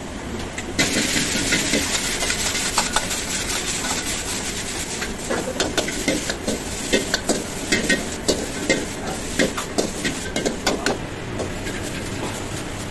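Vegetables and noodles sizzling loudly in a hot iron wok, starting about a second in as sauce goes in. Later a metal ladle clanks against the wok again and again as the chowmein is stir-fried and tossed. Underneath runs the steady rumble of the high-flame gas burner.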